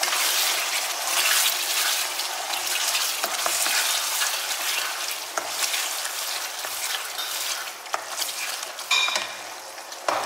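Tomato spaghetti sauce sizzling in a nonstick frying pan as a spatula stirs it, with a few sharp taps and scrapes of the spatula against the pan.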